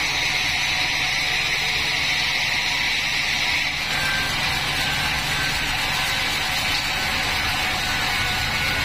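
Sawmill band saw running steadily, a loud noisy whine that shifts in tone about four seconds in.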